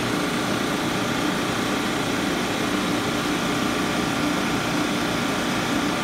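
Refrigeration equipment running with a steady, unchanging mechanical hum.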